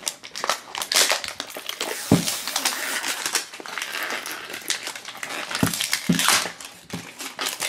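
Plastic wrapper crinkling and crackling as it is peeled off a hard plastic toy capsule, with a few sharp handling knocks.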